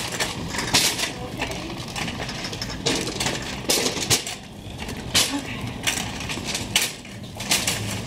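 A string of irregular sharp clinks and knocks from shopping being carried and handled.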